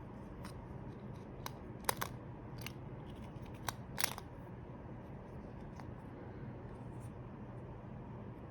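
Small sharp clicks and taps of seatbelt retractor parts, the inertia locking weight and its housing, being handled and seated by hand: about six clicks in the first half, the loudest near two and four seconds in, over a low steady hum.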